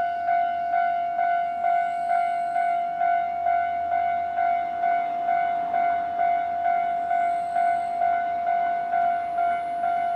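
Japanese railway level-crossing alarm ringing: an electronic bell repeating a single steady tone about twice a second, the signal that a train is approaching and the crossing is closing.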